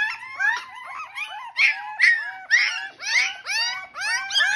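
Several young puppies crying in short, high-pitched whines and yelps, each rising then falling, about two or three a second and often overlapping.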